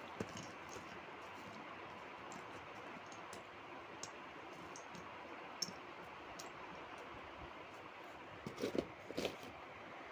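Scattered light clicks over a steady background hiss, with a short cluster of louder clicks and knocks near the end.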